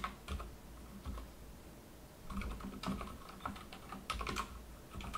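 Computer keyboard typing: irregular keystrokes in short runs with pauses between, fairly quiet.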